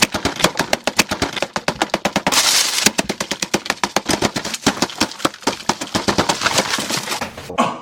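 Rapid open-mouthed smacking and chewing close to the microphone while eating, a fast run of sharp wet smacks about eight to ten a second.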